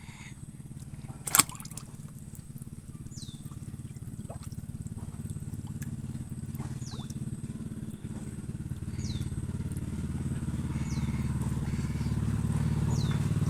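A motor engine running steadily and growing gradually louder, with one sharp click about a second and a half in. About seven short falling whistles come at irregular intervals of roughly a second.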